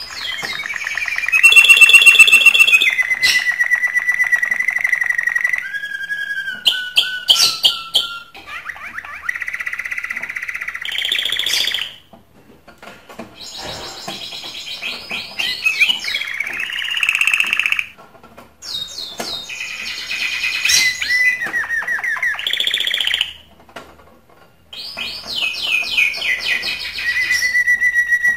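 Male domestic canary in breeding condition singing its courtship song: long phrases of rapid rolling trills and held whistled notes, broken off by short pauses about three times.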